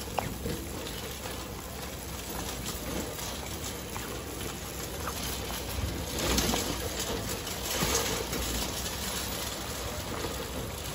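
Metal shopping cart rolling across parking-lot asphalt: a steady, noisy rumble from its wheels, louder for a moment about six seconds in and again about eight seconds in.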